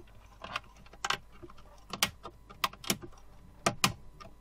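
Plastic trim strip above a Toshiba Satellite L650 laptop's keyboard being pushed down, its clips snapping into place in a string of sharp clicks, about eight, spaced irregularly.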